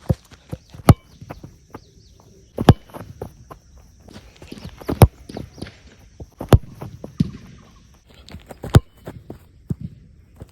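A football being struck by a player in Nivia Coplar football boots: several sharp, loud kicks a couple of seconds apart, with lighter touches and studded footsteps between them.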